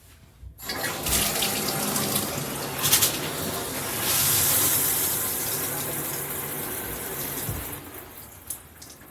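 Water spraying from a Ryamen dual shower head combo and splashing, a steady rush that starts about half a second in and drops to a lower level near the end.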